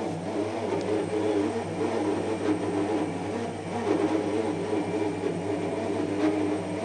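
Twelve-year-old Bosch washing machine running with a steady, rough drone: a low hum under a wavering mid-pitched growl.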